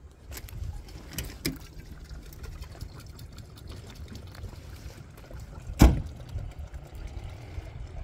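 Water pouring and trickling over a low steady rumble, with a few light clicks early on and one loud thump a little before six seconds in.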